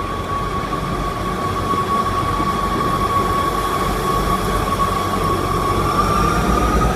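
East Midlands Trains Class 156 and Class 158 diesel multiple units pulling out of the station: diesel engines running under a low rumble, with a steady high whine that rises slightly in pitch near the end as the train gathers speed. The sound grows gradually louder.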